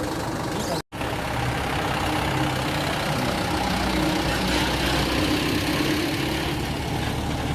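A vehicle engine running steadily at idle, with the sound cutting out for an instant about a second in.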